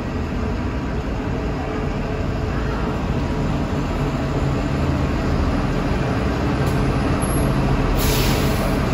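Hybrid-electric city bus running with a steady low drone as it pulls in to the curb, then a sudden air-brake hiss about eight seconds in as it stops.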